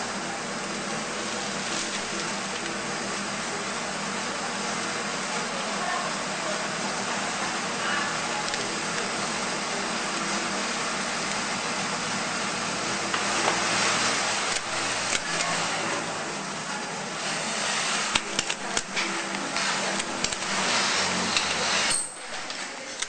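Steady mechanical hum like traffic or a motor, with paper rustling and crackling in the second half as roses are rolled up in wrapping paper; the hum drops away suddenly near the end.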